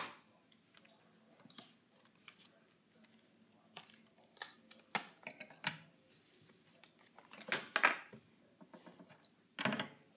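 Faint handling noises: scattered small taps, scrapes and rustles as a cardboard collector card is turned over and moved about, with a sharp click right at the start and a louder rustle a little past halfway.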